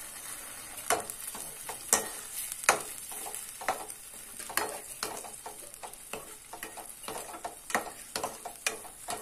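A slotted steel spatula stirring and scraping through thin tomato-onion masala gravy in a stainless-steel kadai, with irregular clinks and scrapes against the pan. Under it is a steady sizzle from the gravy cooking on the flame, just after water has been added.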